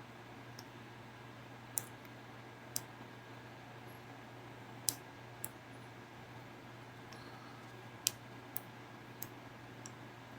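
About eight sharp clicks at irregular intervals over a steady low hum.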